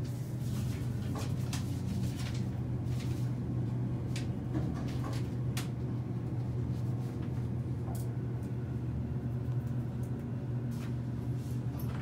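Elevator car travelling between floors: a steady low hum with occasional light clicks.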